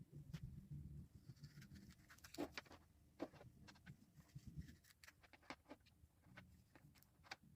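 Faint handling noise: scattered small clicks and light rustles, some of them close together, over a faint low hum.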